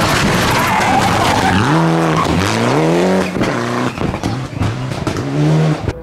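Rally car passing close at speed: a loud rush of engine and tyre noise, then the engine revving hard through the gears, its pitch climbing twice around two and three seconds in with a drop at each shift, followed by shorter revs. The sound cuts off abruptly near the end.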